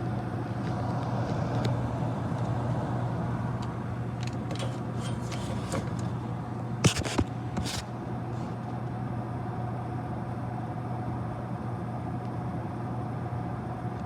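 Air-conditioning equipment running with a steady hum, with a few light clicks and two sharper knocks around the middle.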